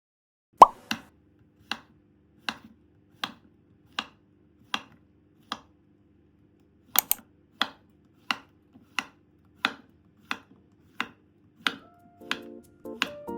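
Knife slicing food on a cutting board: single evenly paced cuts, about one every 0.7 seconds, with a short pause midway and a quick double cut just after it.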